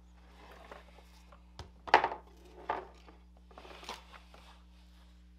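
Braided wire loom sleeving rustling as it is pulled and stretched along a test light cable, with about four sharp clacks of the cable knocking about on the bench, the loudest about two seconds in.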